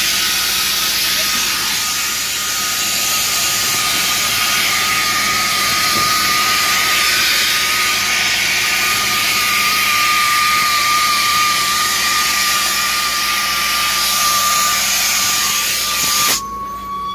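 Line-striping truck's paint guns and glass-bead guns spraying a yellow road line, a super loud, steady hiss with a thin high whine. The spray shuts off suddenly near the end, as the line is finished.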